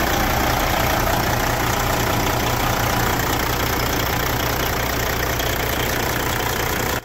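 Caterpillar C15 six-cylinder diesel engine (single-turbo 6NZ) idling steadily with its valve covers off, the open valvetrain adding an even fast clatter to the low engine rumble.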